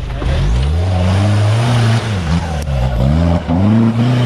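Off-road 4x4's engine revving hard under load in a muddy rut, the revs jumping up about a third of a second in and then rising and falling repeatedly as the driver works the throttle.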